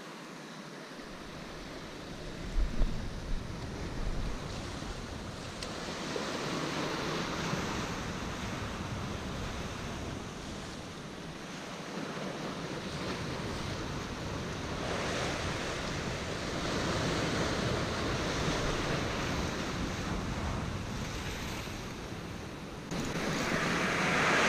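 Sea waves washing and breaking against a rocky shore, swelling and fading every few seconds, with wind buffeting the microphone.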